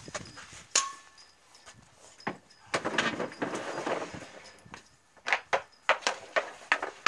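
Hockey shots at a small goal: a sharp stick crack, the shot striking the goal with a short metallic ring about a second in, and later a quick cluster of sharp stick clacks.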